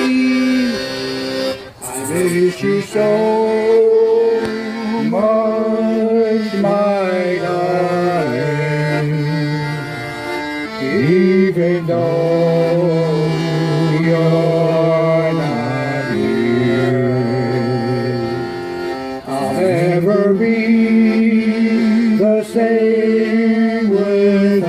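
Live accordion music, a polka-band tune played on sustained chords, with a second melody line that slides and wavers between notes over it.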